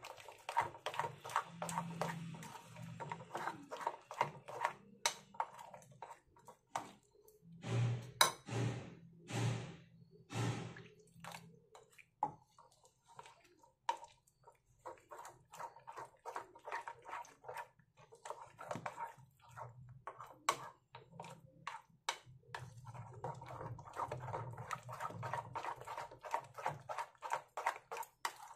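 Thick gram-flour batter being beaten with a spoon in a ceramic dish: a quick, uneven run of wet slaps and light clicks of the spoon against the dish, with a few louder thuds about eight to ten seconds in.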